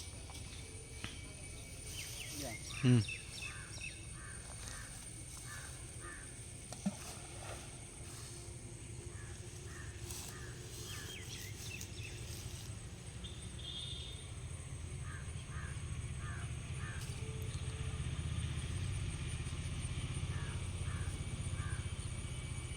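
Outdoor ambience: a steady low rumble that grows a little louder in the second half. Over it come several runs of short, evenly spaced calls, and one sharp falling sound about three seconds in.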